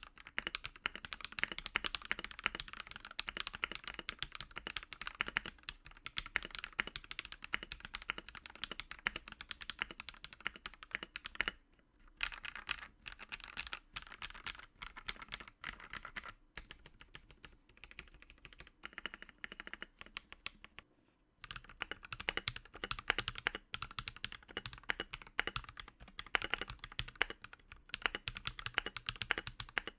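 Mechanical keyboard in a wooden KL-90 case being typed on: lubed KTT Roses linear switches on an FR4 plate with no foam, giving a fast, continuous stream of keystroke clacks. Typing pauses briefly about twelve seconds and twenty-one seconds in.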